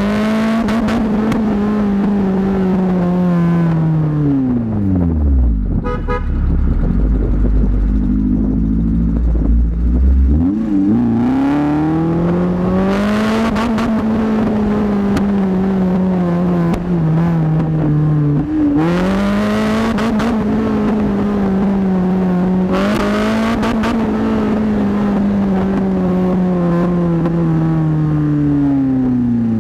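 Suzuki Esteem's modified 1.6-litre four-cylinder twin-cam engine revving hard through a side-exit exhaust, held at high revs for several seconds at a time and falling back to idle about five seconds in. Short bursts of exhaust popping come over the high revs three times.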